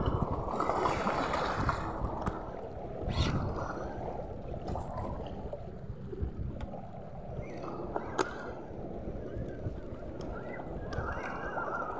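Wind buffeting the microphone over seawater washing against the rocks of a jetty, with a few sharp clicks, one about three seconds in and one about eight seconds in.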